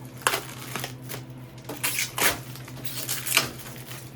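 Protective film being peeled off a cage's poop tray, crackling and tearing in a few uneven pulls.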